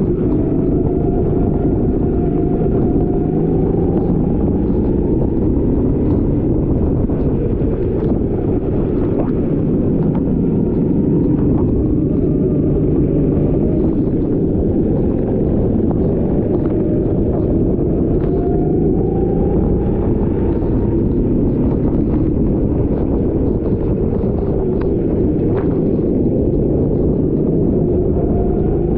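Rental racing kart's small engine running hard, its pitch climbing several times as it accelerates out of corners, with wind buffeting the microphone.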